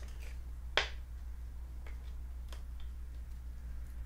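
Trading cards and a clear plastic card holder being handled: one sharp click about a second in, then a few faint ticks.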